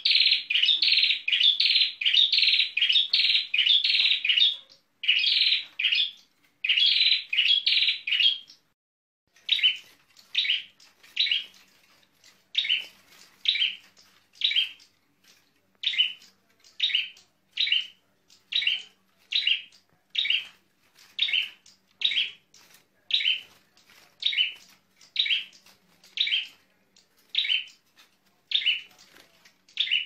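A small songbird singing at close range. For about the first eight seconds it gives fast runs of rapid repeated notes. After a short pause it settles into one short call repeated about once a second.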